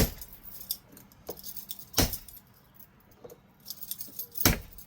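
A bump key in a door lock cylinder struck three times, about two seconds apart, each whack a sharp metallic knock, with the key ring jingling between. The pins are not setting and the lock stays locked.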